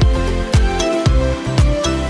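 Background music: an instrumental stretch of a pop dance song with a steady beat of low drum thumps, about two a second, under sustained synth tones.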